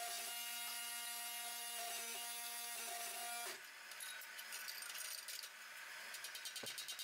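Hydraulic forging press pump running with a steady hum, which cuts off about three and a half seconds in. Near the end a fast, even ticking starts.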